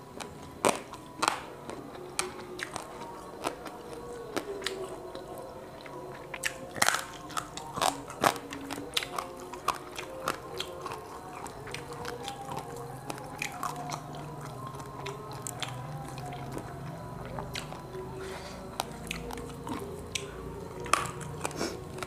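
Close-miked chewing and crunching of grilled quail eaten by hand, with sharp crunches scattered through, the loudest about a second in, around seven and eight seconds in, and near the end.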